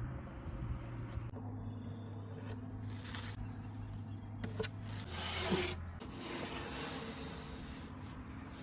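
Several short scraping and rubbing strokes on wood, over a low steady hum.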